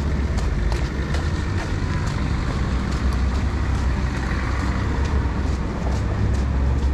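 Street traffic on a city boulevard: a steady low engine rumble from motor vehicles, with passing traffic noise.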